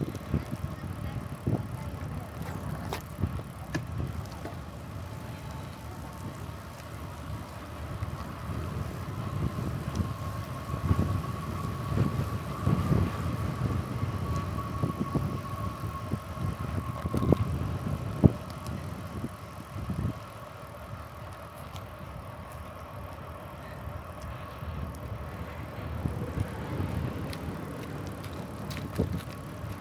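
Bicycle in motion: wind buffeting the microphone over the rolling of the tyres, with scattered knocks and rattles from bumps in the path. A faint steady whine comes in around the middle, rising slightly and then falling away.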